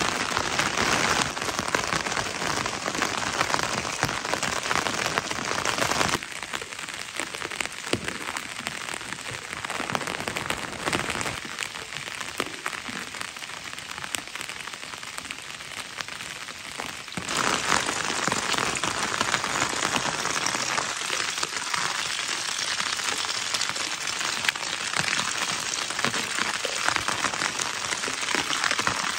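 Steady rain falling, an even hiss of many drops. It grows quieter about six seconds in and comes back to full strength about seventeen seconds in.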